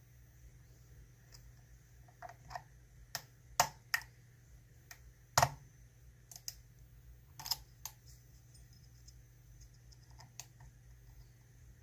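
Irregular small clicks and taps of a pick working the pins of an ISEO R6 six-pin dimple lock held under a tension bar, with a couple of sharper clicks among them.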